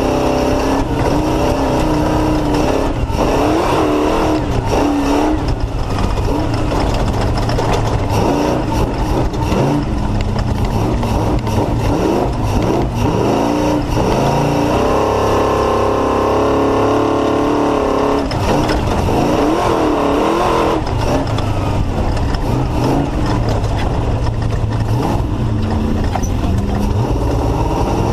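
Off-road race car's engine, a Mullenix Racing build, running hard and loud under racing load, its pitch rising and falling as the driver accelerates and lifts.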